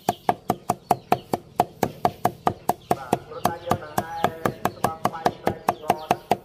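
Cleaver chopping green onions on a wooden stump chopping block: a steady, rapid run of sharp knocks, about five a second.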